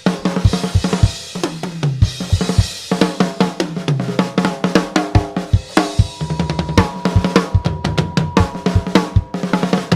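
Drum solo on a full drum kit: rapid bass drum, snare and tom hits mixed with cymbals and hi-hat.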